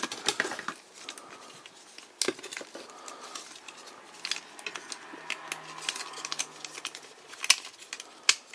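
Plastic parts of a Transformers Dragonstorm figure clicking and knocking at irregular moments as they are flipped up and folded by hand during transformation.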